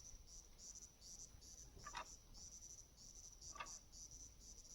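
Faint crickets chirping, a steady run of quick high-pitched pulsed chirps repeating in even groups.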